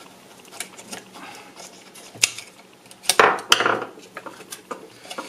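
Clicks, small knocks and scrapes of a screwdriver and fingers working the metal snap connections and wiring on a plastic instrument-cluster circuit board, with the loudest clatter a little after three seconds in.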